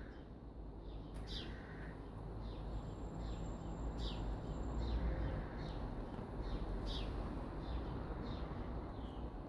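A bird calling repeatedly: short, high, falling chirps, one or two a second, with a thin high whistle about three seconds in. Underneath is a steady low outdoor rumble.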